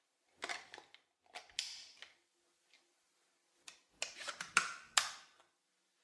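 Plastic clicks and scraping as the clear bin of a Dyson Micro 1.5kg cordless vacuum is slid back onto the cyclone and snapped into place, in several short groups, with two sharp clicks near the end.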